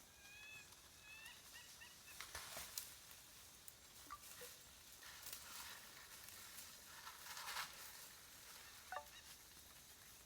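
Faint bird calls, a quick series of short rising chirps in the first two seconds, then scattered soft rustles and crackles in quiet bush.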